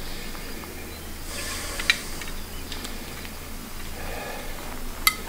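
Olive oil hissing softly as it heats in a cast-iron Dutch oven on a wood-fired rocket stove, with a couple of sharp clicks, about two seconds in and near the end.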